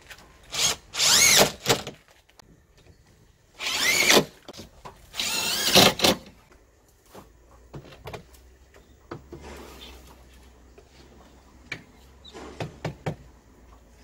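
Cordless driver running in three short bursts, its motor spinning up and winding down, as screws are driven into fiber-cement siding trim; a few lighter knocks and clicks follow near the end.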